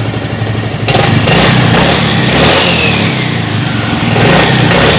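Yamaha Mio M3 125 scooter's single-cylinder engine running on a test after a rebuild, with the throttle opened about a second in so the revs rise and stay up. The rebuild was to cure a clattering engine noise after the engine ran out of oil.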